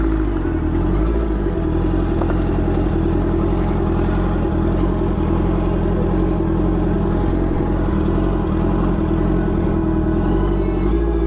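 Honda CBR650F motorcycle's inline-four engine running at steady revs.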